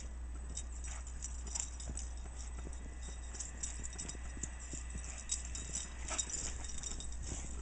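Footsteps crunching in deep snow: a run of short, uneven crunches several times a second.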